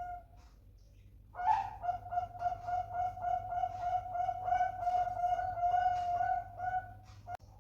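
Young zebra dove (Bangkok-type perkutut) cooing: a fast run of evenly repeated coos, about four a second, starting about a second and a half in and going on for some five seconds.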